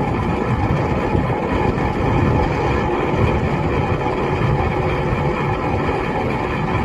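Steady low rumble of working machinery, like an engine running continuously without a clear beat.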